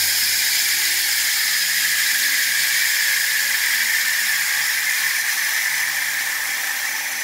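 Home-built 2x72 belt grinder running at full speed: a steady hiss and whine of the belt running over its wheels. It runs smoothly, with so little vibration that a nickel stays standing on the tool rest. The level eases slightly near the end.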